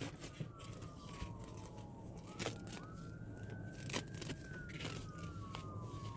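Faint wailing siren of an emergency vehicle, its pitch sliding slowly down, swinging quickly back up about two seconds in, then sliding down again. Scattered sharp clicks and rustles of handling come over it.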